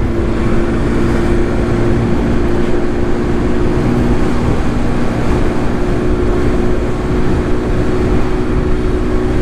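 Hero Honda Pleasure scooter's small single-cylinder four-stroke engine running at a steady cruise, a constant hum with a few held tones. Heavy wind rush on the microphone from riding speed.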